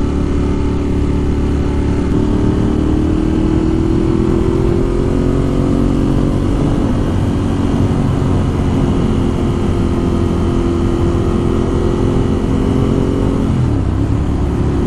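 Ducati Monster 1200 R's L-twin engine running under way, pulling with its pitch rising slowly as the bike gathers speed, then holding steady. A brief dip in engine note comes near the end, as at a gear change or a roll-off of the throttle, over a constant low rumble of wind and road.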